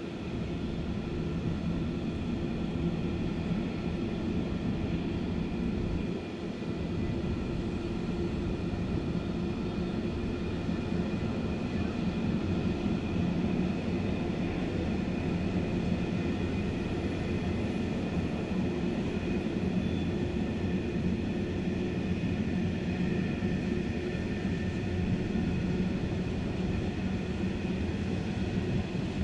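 Long empty iron ore train rolling past, its wagons giving a steady low rumble on the rails with a constant whine above it.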